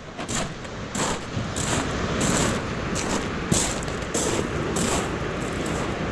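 Footsteps crunching on a shingle beach of loose pebbles at a walking pace, about two steps a second, over a steady wash of surf.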